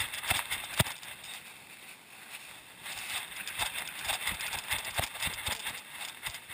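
Movement noise from an action camera worn on a Czechoslovakian wolfdog as she trots along a rocky trail: irregular clicks, knocks and scuffs from her footfalls and the rubbing mount, over a steady hiss. One sharp click sounds just under a second in.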